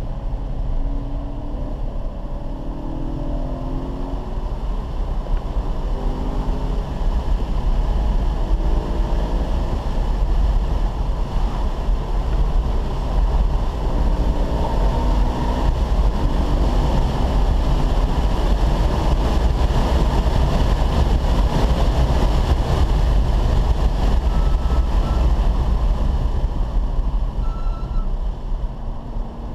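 Car engine and road noise heard from inside the cabin on a track lap, with a heavy low rumble. The engine note rises in steps during the first few seconds and again briefly in the middle, and the whole sound grows louder about seven seconds in and stays loud at speed.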